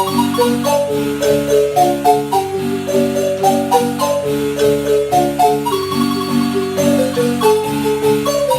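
Marimba playing a tune: a melody line over lower bass notes, with many notes sustained by rapid rolled strokes.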